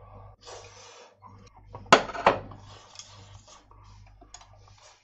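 Dishes being handled: two sharp clinks close together, about two seconds in, from a plate and chopsticks. Soft hissy noise comes and goes around them.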